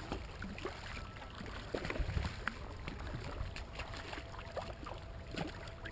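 Hooked redfish thrashing at the surface beside a kayak, in a run of scattered short splashes and water sloshing.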